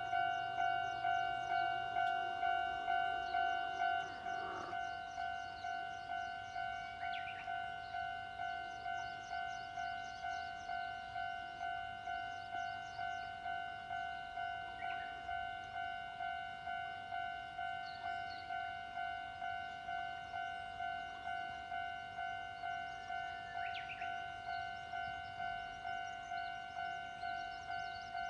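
Electronic warning bell of a Japanese railway level crossing ringing steadily, about two strikes a second. The ringing drops a little in volume about four seconds in, as the noise of a passing train ends.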